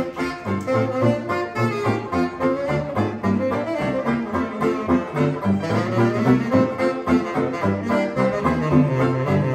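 Small hot jazz band playing an instrumental passage: saxophone and brass lead over a tuba bass line that steps through the notes about twice a second.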